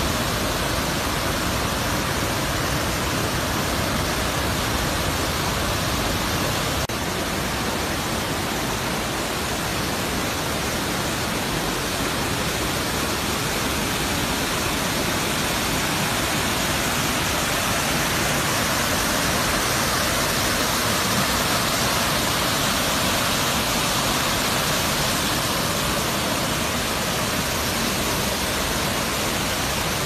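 Waterfall in flood spate, muddy forest runoff after heavy rain pouring over its tiers with a steady rush of water.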